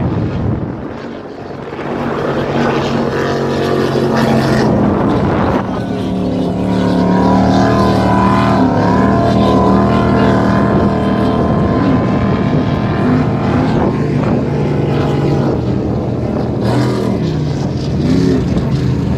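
Offshore racing powerboats' engines running flat out as the boats pass at speed, a loud steady drone of several engine notes over a hiss of water. The sound changes abruptly about five seconds in, and near the end one engine note dips and rises again.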